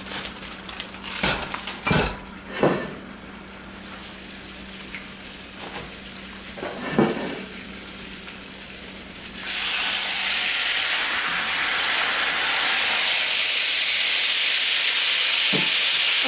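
Aluminium foil crinkling and pans clattering as a foil cover and weight come off a cast-iron skillet. Then, about nine seconds in, a loud, steady sizzle of hot fat and chicken juices in the skillet starts suddenly, with a couple of light knocks near the end.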